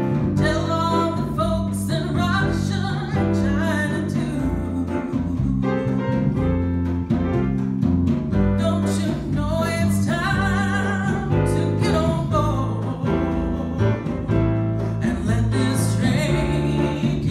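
A woman singing lead into a microphone with a church choir, over an instrumental backing with a steady bass line.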